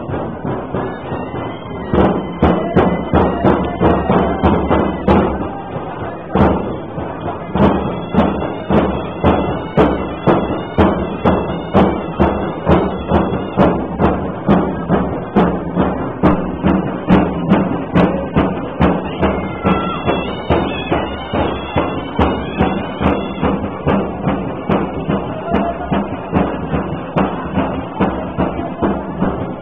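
Drum beaten in a steady rhythm, nearly two strokes a second, over the chatter of a dense crowd; the beating starts loud about two seconds in and pauses briefly near six seconds before running on.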